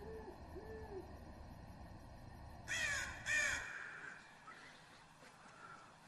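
Two soft, low owl hoots at the start, then a crow cawing twice, loud, about three seconds in.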